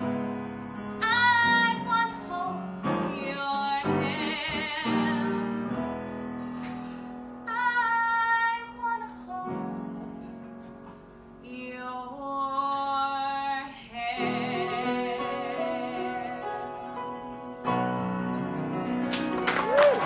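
A woman's alto, mezzo-belter voice singing live with piano accompaniment: sung phrases with held notes carrying vibrato, separated by short breaths.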